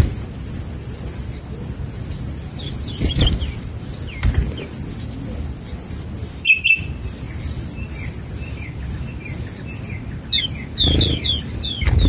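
White-eye nestlings begging at the nest as adults feed them: a rapid, unbroken run of high, thin cheeps, several a second, with a brief pause about halfway. Near the end come a few lower, falling chirps.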